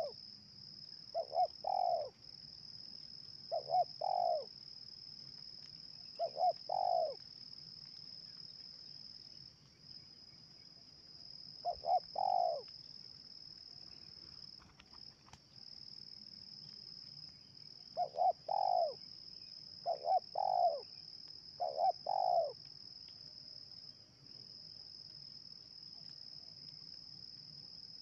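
Spotted dove, the trained decoy, cooing: about eight short phrases of two or three notes each, coming every couple of seconds, with a pause of several seconds in the middle. A steady high-pitched insect drone runs underneath.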